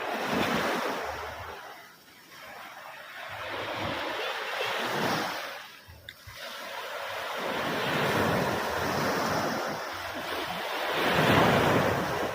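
Ocean surf: waves rushing in and drawing back in four swells about three seconds apart, the last one the loudest.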